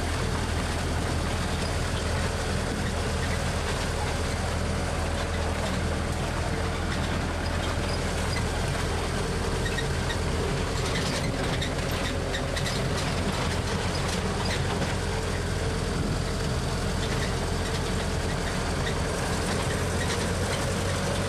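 Open-sided tour tram driving along, heard from on board: its engine runs steadily with a constant low hum, and a cluster of rattling clicks comes about halfway through.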